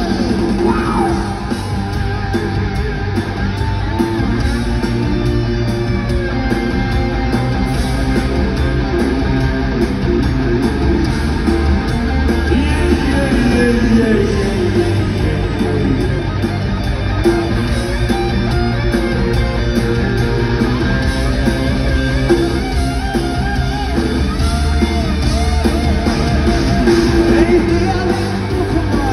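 A rock band playing live: guitar, bass and drums, with a voice singing at times.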